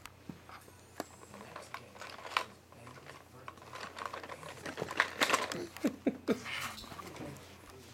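Irregular clicks and rustles of handling close to the microphone as a crawling baby reaches the camera and toy, with a few short baby vocal sounds about six seconds in.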